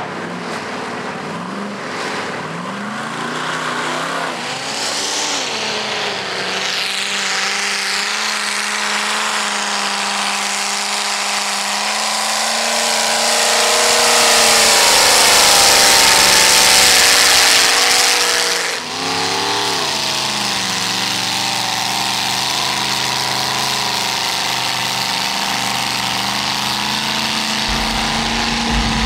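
Lifted 4x4 pickup trucks driving through a mud pit, their engines revving hard with the pitch rising and falling. The sound swells loudest a little past halfway, then breaks off briefly about two-thirds through before another truck's engine carries on.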